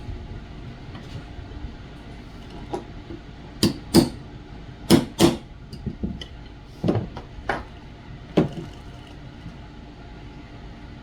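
Hammer tapping a punch to drift the cross pin that holds a revolver's front sight blade: about nine sharp taps at an uneven pace, some in quick pairs.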